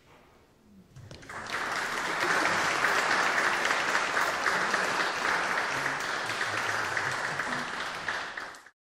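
Audience applauding: clapping starts about a second in, holds steady and dense, then cuts off abruptly near the end.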